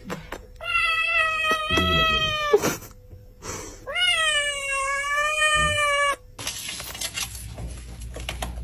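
A kitten meowing twice, two long drawn-out meows of about two seconds each, the second rising at its start. Then a quieter stretch of faint noise and a few clicks.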